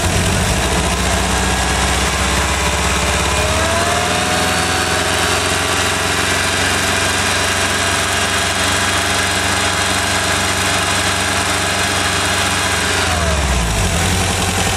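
VW Vanagon 1.9 L water-cooled flat-four (wbx) engine idling, then revved up about four seconds in and held at a steady higher speed before settling back to idle near the end. With the distributor's vacuum retard line teed into the plenum, it keeps running instead of dying as the throttle opens.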